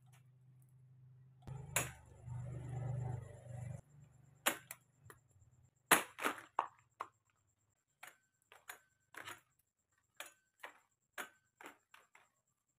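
Rubber plant (Ficus elastica) branch being cut and its leaves snapped off: a series of about fourteen sharp snaps and clicks, loudest about six seconds in, with a stretch of rustling handling of the stems and leaves between about one and a half and four seconds in.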